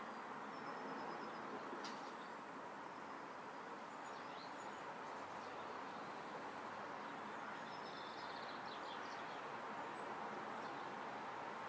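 Faint outdoor ambience: a steady background hiss with small birds chirping softly now and then, in short high calls scattered through, and one faint click about two seconds in.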